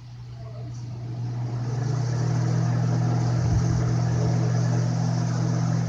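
Lasko 20-inch box fan running: a strong motor hum under the rushing air of its blades, growing louder over the first two seconds and then steady.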